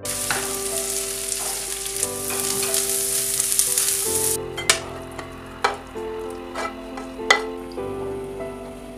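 Sliced onions sizzling loudly in hot oil and butter in a frying pan as a wooden spoon stirs them. About four seconds in the sizzle drops to a faint hiss, broken by three sharp clicks, with soft keyboard music underneath throughout.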